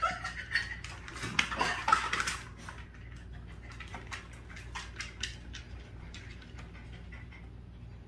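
A dog whining and scuffling for the first two or three seconds, then a run of light scratches and clicks as a long-haired dachshund paws and moves about on its floor cushion.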